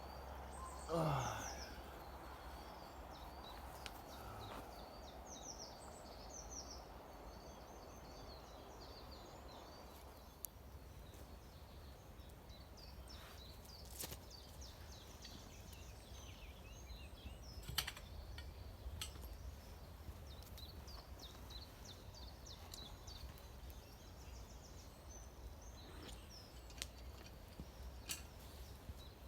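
Wild birds chirping and singing on and off, faint over a low steady rumble, with a few sharp clicks in the middle.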